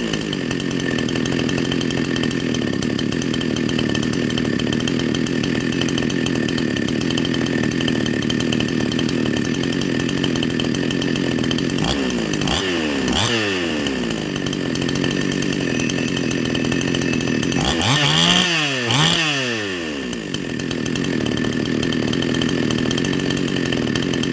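Chinese 52cc two-stroke chainsaw fitted with a 62cc crankshaft, idling steadily and blipped up to high revs and back: once about halfway through, then twice in quick succession about three-quarters of the way through.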